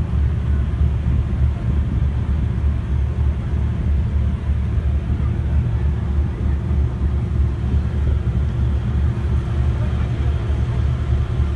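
Passenger ferry under way, its engines and propeller wash making a steady low rumble.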